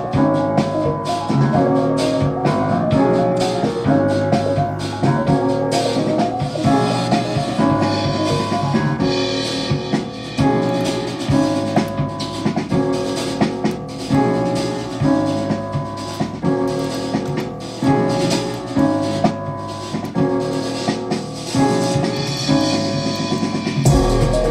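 A hip-hop beat in progress playing back from music production software: a melody of held, pitched notes over a steady drum pattern. A deep bass note comes in near the end.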